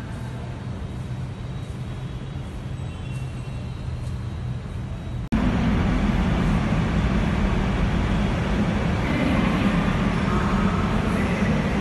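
Steady low rumble of road-traffic noise inside a metro station concourse. It breaks off sharply about five seconds in and comes back louder.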